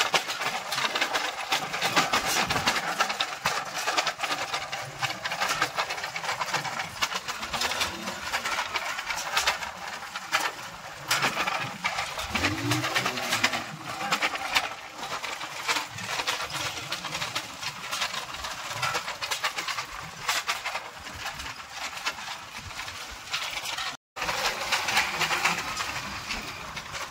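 Bullock cart moving along a dirt track: a steady, dense rattle and clatter from the cart's iron-rimmed spoked wheels and wooden frame. It cuts out for an instant a few seconds before the end.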